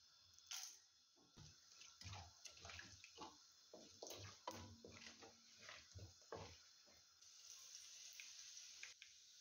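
Whole spices crackling and popping in hot oil in an aluminium karahi, with a wooden spoon scraping through them. Near the end a steadier sizzle sets in as chilli flakes hit the oil.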